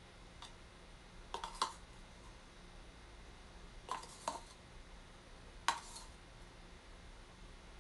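A handful of light clinks and taps of a spoon against dishes while a small amount of baking powder is measured out and added to rice flour.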